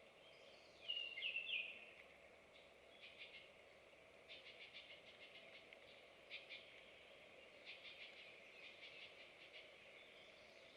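Faint woodland songbirds: one short, pitch-jumping call about a second in, then several dry, rapid trills, over a steady low background hum.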